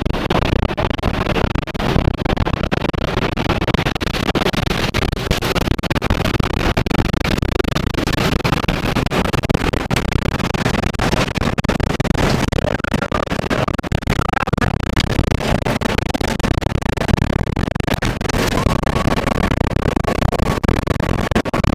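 Violent tornado winds rushing over and buffeting the armored tornado intercept vehicle, a dense, loud noise broken by many rapid knocks and rattles. A steady high whistle-like tone comes in near the end.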